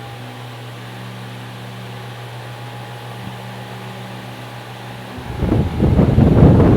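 Ventex Tex6 Max Turbo 60 cm wall fan running with a steady motor hum. About five seconds in, its airflow starts hitting the microphone, a much louder rumbling rush of wind.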